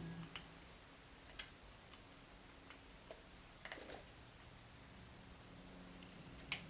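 A few sharp small clicks and taps of a tool and small parts while a wheel is being fitted onto an RC rock crawler's axle, spaced a second or two apart over a faint steady hum.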